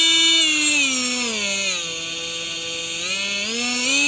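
Flex 24-volt cordless oscillating multi-tool running with no load, a steady high whine. Its speed eases down to a lower pitch about a second and a half in, holds there, then rises back to full speed near the end.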